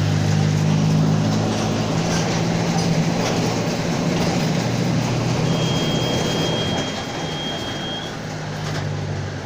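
Mercedes-Benz OF-1722M city bus under way, its engine and drivetrain running with a steady low drone that eases slightly about seven seconds in. A thin, steady, high whine sounds for about two and a half seconds past the middle.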